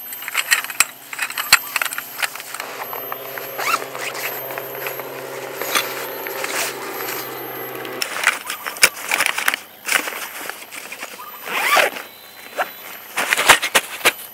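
The folded metal frame of a ShineTrip ST-A340 camping cot clinking and knocking as it is handled and slid into its fabric carry bag, with the bag rustling. A low steady hum runs underneath in the middle and stops abruptly about eight seconds in.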